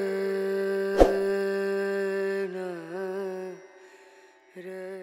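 Music with a voice singing long held notes that bend in pitch, and a single sharp click about a second in. The singing fades out a little after halfway and comes back near the end.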